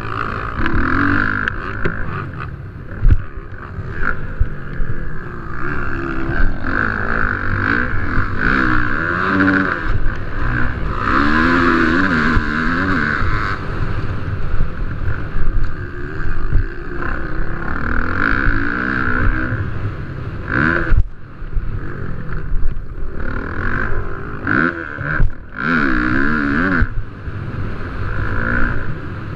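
Motocross dirt bike engines racing, the pitch rising and falling over and over as the throttle is worked. A couple of sharp knocks stand out, about three seconds in and again past the twenty-second mark.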